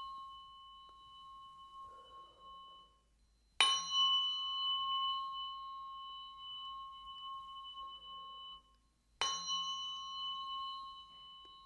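Biofield tuning fork struck and left to ring with a clear, steady tone that slowly fades; it is struck again about three and a half seconds in and again about nine seconds in.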